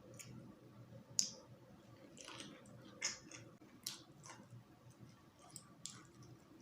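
Faint eating sounds: chewing with wet mouth clicks and smacks, and a few sharper clicks, over a low steady hum.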